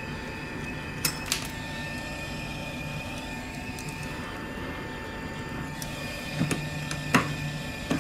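Hot air rework station blowing steadily, a fan noise with a thin high whine. A few sharp clicks come about a second in and again near the end, as a metal blade works at the cracked back glass.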